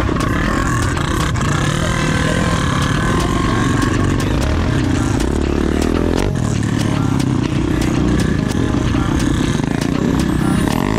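Dirt bike engine running while riding, revving up once about halfway through before dropping off abruptly, with scattered sharp clicks over the steady rumble.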